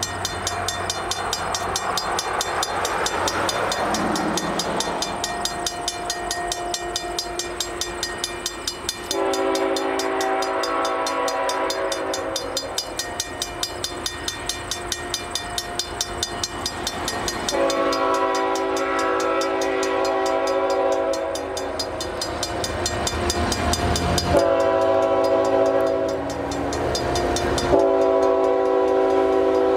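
Approaching diesel freight locomotive sounding its horn in long blasts, a chord of several steady notes, over the running of the locomotives and the rumble of the train. The first two long blasts come about a third of the way in and just past the middle, with further blasts near the end.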